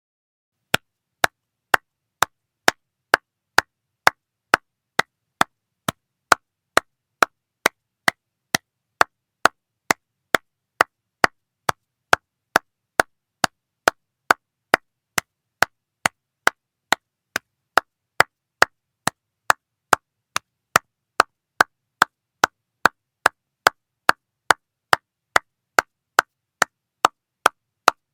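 Slow hand clapping at a steady pace, about two sharp claps a second, each clap separate with silence between.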